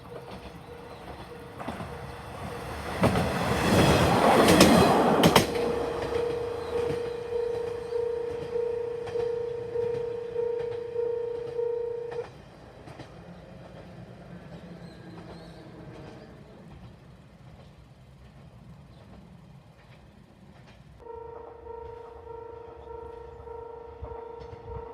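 Level-crossing warning bell with a distinctive tone, ringing in a steady repeating beat. About three seconds in, a Tarumi Railway diesel railcar passes loudly over the crossing with rail-joint clicks, for about two seconds. The bell keeps ringing after the train has gone, stops about halfway through, and starts ringing again near the end.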